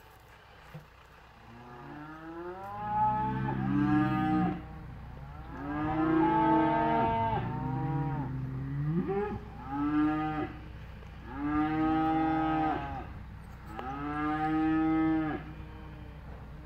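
Cattle mooing: about five long calls one after another, each lasting one to three seconds.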